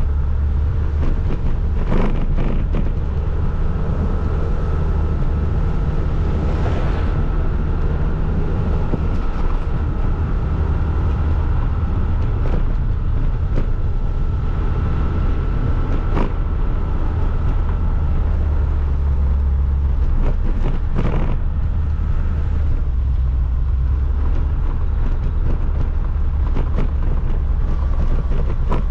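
Vehicle driving along an unpaved dirt road: a steady low rumble of engine and tyres, with a few sharp knocks scattered through.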